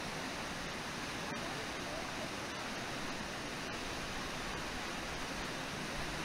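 Steady rush of water pouring over a low, wide river waterfall.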